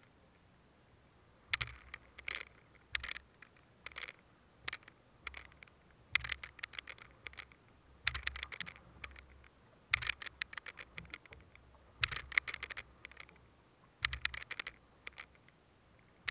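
Fishing handline being hauled in hand over hand through a gloved hand, a burst of scratchy clicks with each pull, coming in groups about every one to two seconds.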